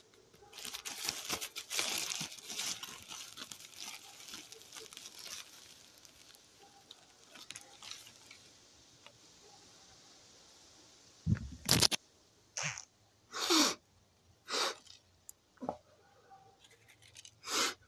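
Thin plastic bag crinkling and rustling as it is handled, dense for the first few seconds and then tailing off. Then a run of five or six short, loud bursts of noise, the first about eleven seconds in.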